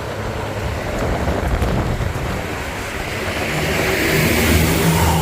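Road traffic: a steady rumble of vehicle engines and road noise, with one vehicle's engine drone and road noise growing louder over the last couple of seconds as it comes close.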